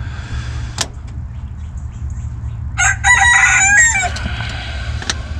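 A rooster crows once, about three seconds in, the call lasting just over a second. A steady low rumble runs underneath, and there is a single click about a second in.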